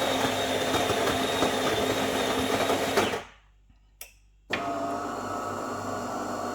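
DeLonghi Magnifica S bean-to-cup espresso machine running through its coffee cycle, a steady mechanical whirr with a high whine. About three seconds in it cuts off abruptly for over a second, then a different, steadier machine hum starts.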